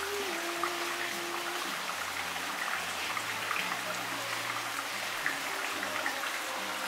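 Water steadily trickling and splashing into a garden pond, a continuous patter with tiny drips.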